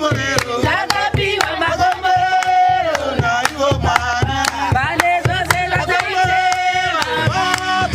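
A group singing together with steady hand clapping and beats on a hand-held frame drum.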